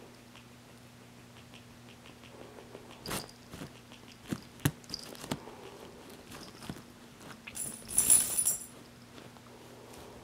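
A cat playing with a small toy: scattered soft taps and clicks as it paws and bites at it, with a louder rustling clatter about eight seconds in.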